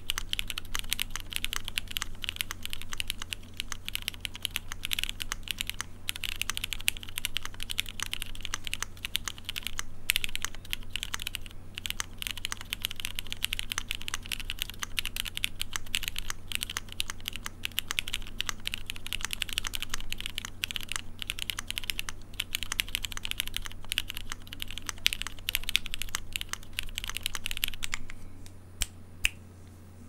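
Fast typing on a Keychron Q3 gasket-mount keyboard with lubed Cherry MX Black Hyperglide linear switches, an aluminium plate and no foam, fitted with ABS white-on-black Yongqiu keycaps: a dense, continuous run of keystroke clacks that thins to a few single keystrokes near the end.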